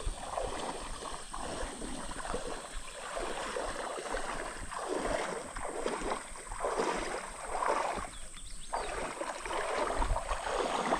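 Creek water sloshing and splashing in irregular surges, about one swell every second or so.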